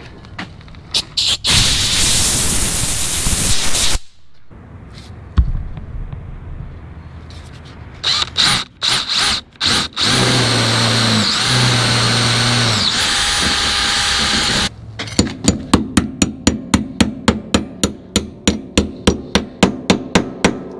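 DeWalt DCD791 cordless drill boring pilot holes through a steel snow plow deflector plate: a few short trigger bursts, a run of a couple of seconds, more short bursts, then a longer run with the motor whine stepping in pitch. In the last few seconds comes a steady string of quick hammer taps on metal, about four a second.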